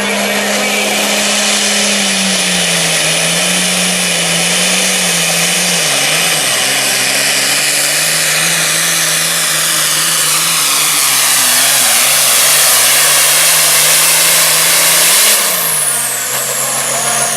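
Turbocharged diesel engine of a John Deere super farm pulling tractor running flat out under load, its pitch sagging steadily as the sled bogs it down, with a thin high whistle above. About fifteen seconds in the sound changes abruptly, dropping in loudness as the pitch swoops up and falls again.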